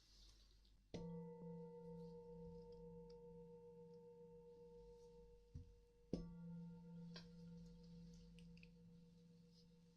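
Singing bowl struck softly twice, about five seconds apart, each strike ringing on with a low tone and several higher overtones that fade slowly.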